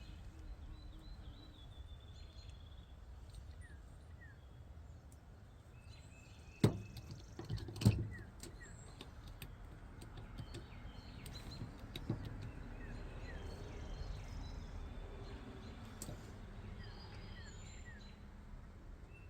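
Quiet handling of a stranded wire and hand tools, with two sharp clicks about seven and eight seconds in, over faint bird chirps and a low steady hum.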